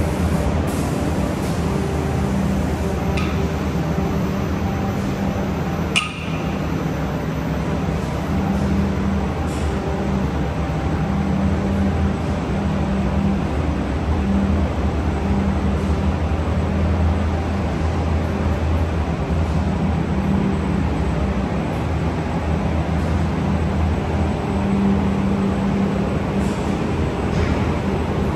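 Steady industrial hum and rumble of a running cabinet-door finishing line's machinery, with a sharp metallic click about six seconds in.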